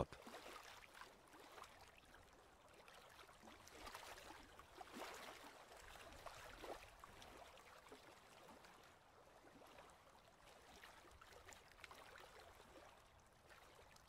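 Near silence: only a faint, even background hiss with a few weak, indistinct sounds around the middle.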